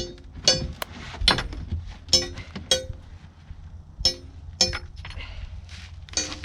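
Hammer striking steel pins and wedges to knock them out of aluminium concrete wall forms: about nine sharp metallic clinks at an irregular, unhurried pace, each ringing briefly.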